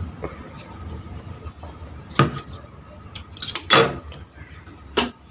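A few sharp metallic clinks and clicks as sewing things are handled on a sewing machine's metal bed, most of them in the second half, over a low steady hum.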